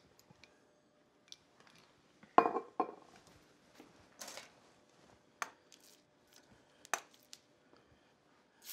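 Scattered light clicks and knocks of cookware and utensils being handled, the loudest a clatter a little over two seconds in. At the very end a beef roast is laid into hot oil in a skillet and starts to sizzle.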